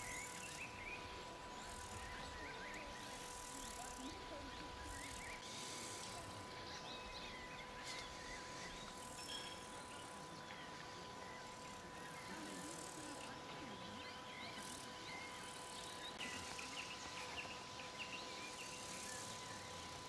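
Faint bush ambience of insects and scattered short chirps, over a steady thin whine.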